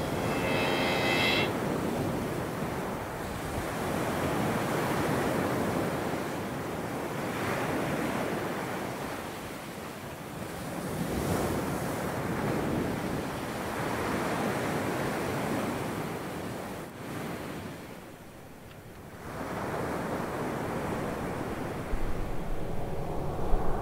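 Sea surf: waves washing in and out, the noise swelling and falling every few seconds. A short pitched call sounds right at the start, and a few sharp knocks come near the end.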